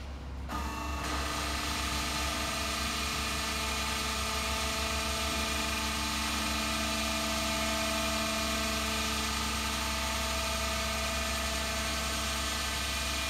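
Electro-hydraulic goods lift lowering its platform: a steady hum with several held whining tones starts about half a second in and runs evenly.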